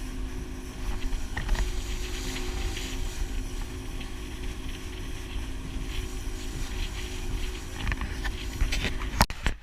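Boat motor running steadily with a low rumble and wind noise on the microphone; a sharp knock just before the end.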